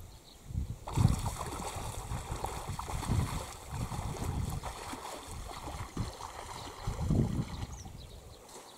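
Water lapping and sloshing close to the microphone, with irregular low surges of water or wind noise every second or two.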